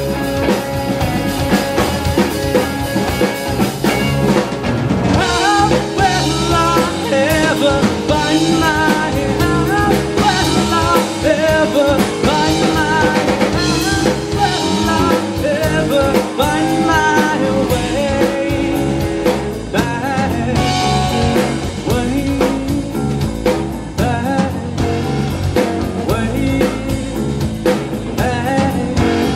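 A live rock band playing: electric guitar, drum kit and keyboards, with a male voice singing over the middle part.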